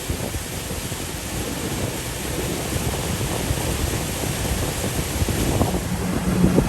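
Wind buffeting the microphone and water rushing past a moving pontoon boat. A steady low hum comes in near the end.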